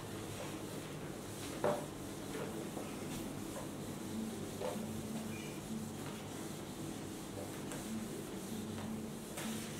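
Whiteboard eraser being rubbed back and forth across a whiteboard, wiping off marker writing, with light scuffs and a single sharp knock about a second and a half in.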